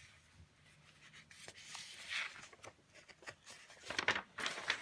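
Large sheets of drawing paper rustling and scraping as they are handled and one is flipped over, with the loudest rustle a little after four seconds in.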